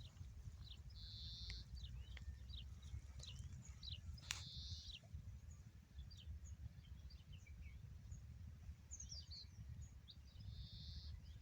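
Small birds chirping: scattered short high calls, with three brief buzzy trills, over a faint low steady rumble.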